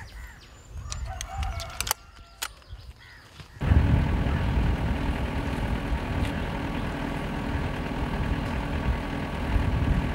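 Outdoor ambience with a few sharp clicks and faint bird calls. About three and a half seconds in, a loud, steady, low mechanical rumble cuts in abruptly and carries on.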